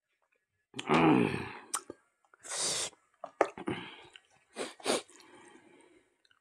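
A man lets out a loud, voiced 'ahh' after a drink from a glass, then a hissing breath, followed by lip smacks, clicks and chewing as he eats by hand.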